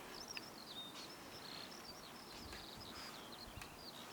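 Faint songbirds singing in the background, a run of quick high chirps and warbles, with a few faint clicks.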